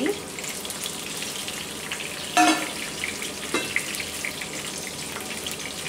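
Fish pieces shallow-frying in a little oil in a nonstick pan, with a steady sizzle and crackle. A wooden spatula works the pieces, and there is one brief louder sound about two and a half seconds in.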